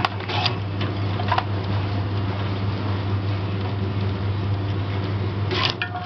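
Sugarcane cutting machine running with a steady low hum and a busy mechanical clatter, its blade chopping a fed cane stalk into short pieces with sharp cracks in the first second and a half and again near the end.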